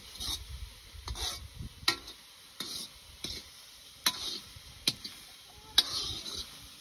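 A kitchen utensil scraping and clicking against a hard vessel as food is stirred. Soft irregular scraping is broken by a few sharp clicks, the loudest of them in the second half.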